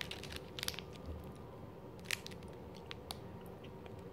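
A person biting into a dark-chocolate-covered orange fondant bar and chewing quietly, with scattered faint clicks; the sharpest comes about two seconds in.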